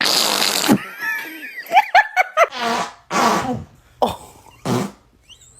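A fart sound, a noisy burst lasting under a second, followed by a person laughing in several bursts.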